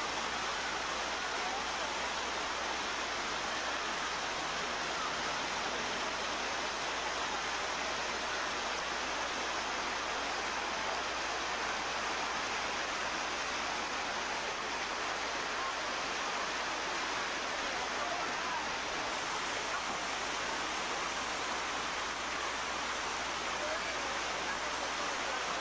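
Steady rush of a shallow rocky stream, water running over rocks in small rapids.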